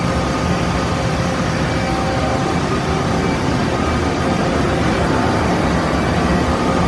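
Okuma Multus U3000 mill-turn center running with its coolant system, a steady mechanical hum and rush of noise with several faint, steady whining tones.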